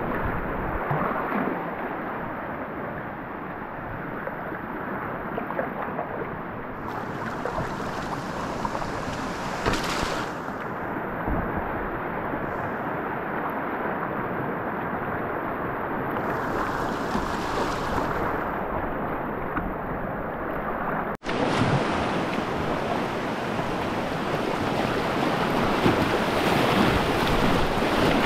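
River rapids rushing and splashing close around a whitewater kayak as it runs through white water, a steady dense roar of water. The sound drops out for an instant about three quarters of the way through, then resumes.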